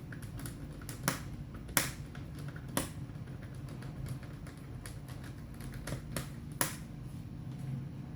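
Sharp plastic and metal clicks and taps from hands working on an open laptop: four louder clicks about 1, 2, 3 and 6.5 seconds in, with softer taps between, over a low steady hum.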